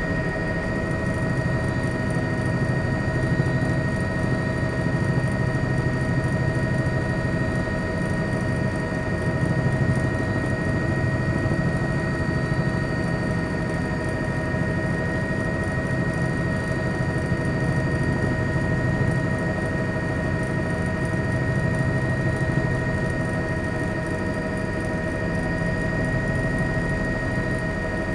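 A steady engine drone: a constant low rumble that swells and eases slowly, with several high whining tones held unchanged throughout.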